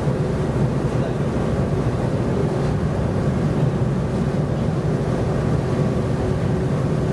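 Sightseeing boat's engine running steadily, a low, even drone heard from on board the moving boat.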